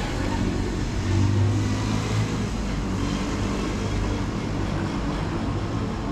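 Wind rumbling on the action camera's microphone, a steady low rumble that swells briefly about a second in.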